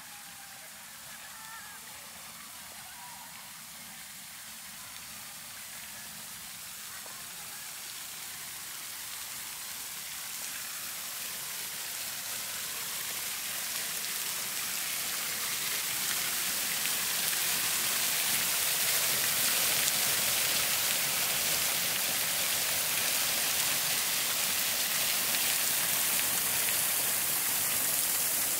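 Falling water, a steady rushing hiss that grows louder over about the first 18 seconds and then holds steady.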